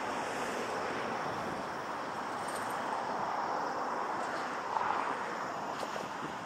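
Steady outdoor city background noise, an even hiss of distant traffic and wind with no distinct events, swelling slightly about five seconds in.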